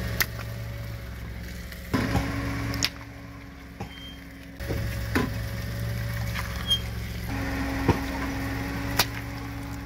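A car engine idling with a steady low hum as the tyre creeps forward onto water balloons. There are several sharp pops spread through, as balloons burst under the tyre.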